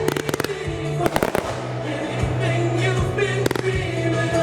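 Consumer fireworks going off in a finale barrage: clusters of sharp bangs and crackles near the start, about a second in and again near the end, over music playing with a steady tone underneath.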